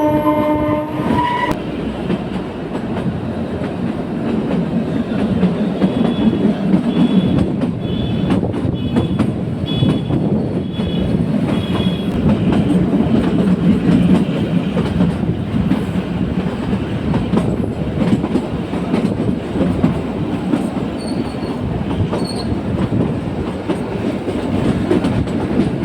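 Kalka–Shimla narrow-gauge toy train running on its track, wheels clattering steadily over the rail joints. The tail of the train's horn cuts off about a second in, and short high wheel squeals come in a series between about six and twelve seconds.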